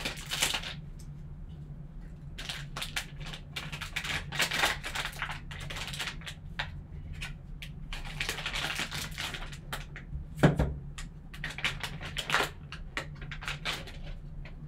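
A foil trading-card pack crinkling and tearing as gloved hands open it, with clicks of a plastic card slab being handled. A single sharp knock about ten and a half seconds in, as something hard is set down or bumped. A steady low hum sits underneath.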